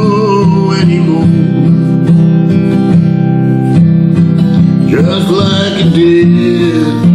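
Steel-string acoustic guitar strummed in D minor, in a country-blues song. A man's singing voice holds a note up to about a second in and comes in again at about five seconds.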